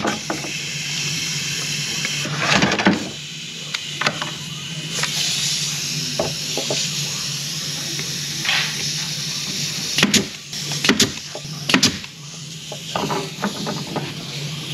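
Senco pneumatic pin nailer firing pins into a wooden cabinet box: sharp clicks, three in quick succession about ten seconds in, with short puffs of air hiss, over a steady shop hum.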